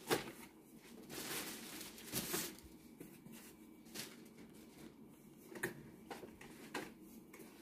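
Faint handling noise from a plastic baby highchair and its packaging being moved and set up: scattered light clicks and knocks with soft rustling between them.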